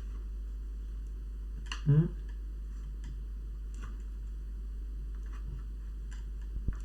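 Faint, scattered clicks of a plastic laptop case as fingernails work at its seam, trying to release the clips holding the bottom cover. Underneath runs a steady low hum, and a short murmur comes about two seconds in.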